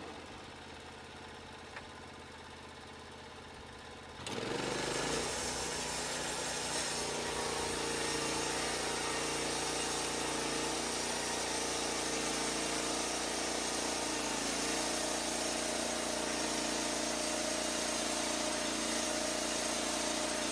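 Portable bandsaw sawmill's engine: a low hum for about four seconds, then it throttles up with a quick rise in pitch and runs steadily at speed.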